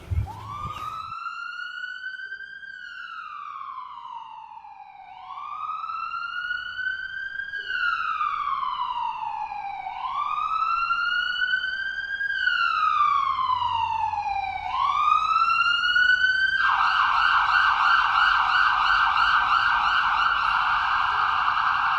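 Emergency vehicle siren: a wail that rises and falls slowly, about every five seconds, growing louder, then switching to a rapid yelp about three quarters of the way through.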